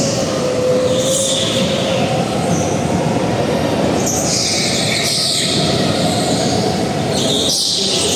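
A go-kart running at speed, its motor giving a steady tone that rises and falls slightly, with a high squeal that comes and goes.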